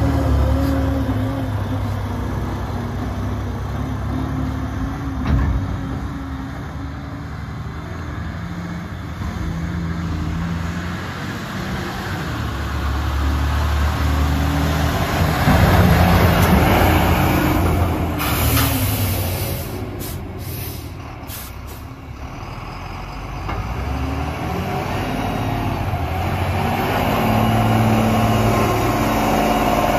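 Volvo A25E articulated dump truck's diesel engine running under load and revving as the truck works and drives about. The engine note rises and falls, loudest about halfway through as the truck comes close.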